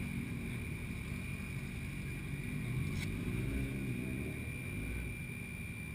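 Yamaha FZ6's 600 cc inline-four engine idling steadily with the bike at a standstill, a low even rumble heard through the camera housing on the fuel tank.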